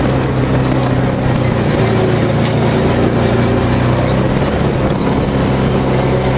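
Arctic Cat Wildcat 1000 side-by-side's V-twin engine running at a steady pace while driving along a dirt trail, heard from inside the open cockpit. A constant rush of wind and trail noise runs under the engine hum.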